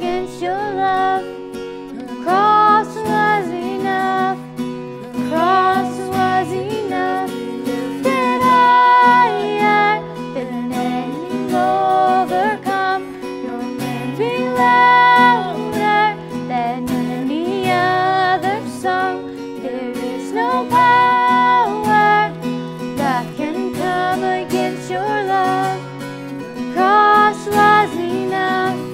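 A woman singing solo, holding and bending long notes, over acoustic guitar accompaniment.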